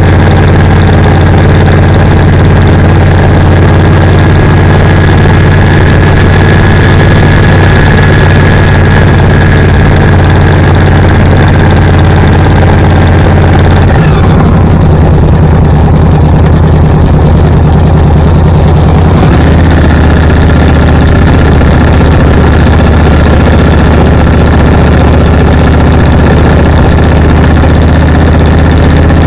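Car engine and road noise while driving, a loud steady drone. About halfway through, the drone drops in pitch for about five seconds, then comes back up.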